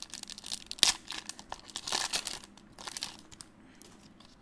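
Foil wrapper of a Pokémon TCG booster pack crinkling and tearing as it is pulled open by hand, with a sharp snap about a second in. The crinkling dies down after about three and a half seconds, as the cards are drawn out.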